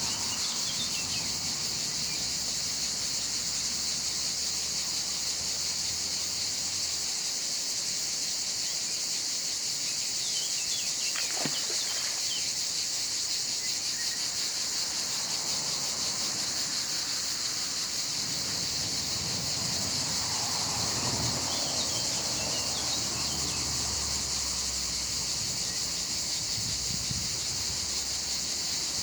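A steady, shrill insect chorus that does not let up, with a few faint bird chirps over it.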